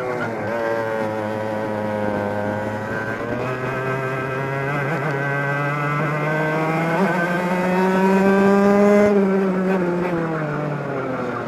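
Onboard sound of a 100cc two-stroke racing kart engine at full race pace. The revs dip low at the start, climb steadily to a high peak about nine seconds in, then fall away near the end as the kart slows for the next corner.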